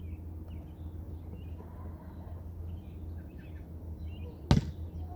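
A ball bouncing on a hard floor: two sharp bounces near the end, about two-thirds of a second apart, after a few seconds of faint rustling.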